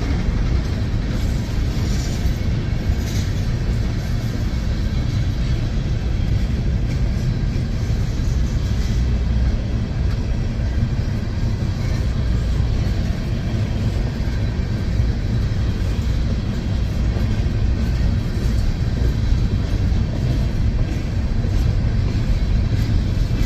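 Empty open hopper cars of a freight train rolling past on the track: a steady low rumble.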